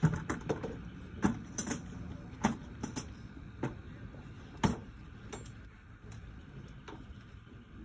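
A series of irregular sharp clicks and knocks, about ten in all, the loudest at the very start and a few more spaced a second or two apart, over a low steady background hum.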